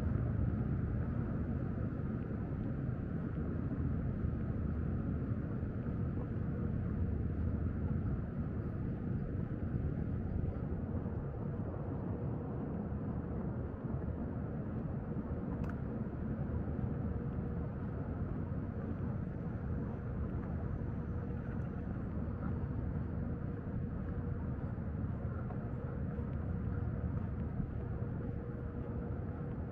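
Steady low outdoor rumble of ambient background noise, with a faint steady hum from about six seconds in and a single click about halfway through.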